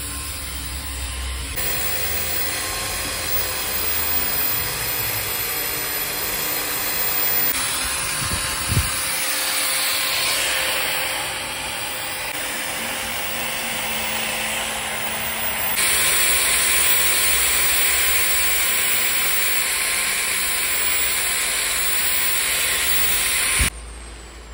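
Angle grinder with a wire cup brush scrubbing the bark and surface of an old tree trunk: a steady motor whine under a harsh scratching hiss, shifting abruptly in tone several times. A sharp knock comes about nine seconds in, and the sound drops away suddenly near the end.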